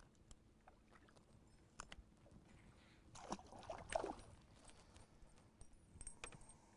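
A fish splashing at the waterline for about a second, around three seconds in, as it is lifted by hand into a boat. Otherwise near silence with a few faint clicks.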